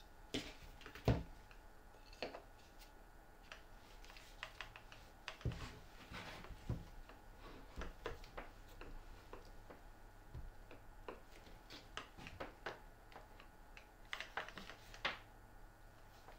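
Scattered light knocks and clicks from handling a corded HiKOKI drill and a wooden block on a cutting mat, as the block is fitted over the drill's chuck collar. The drill is not running; the loudest knock comes about a second in.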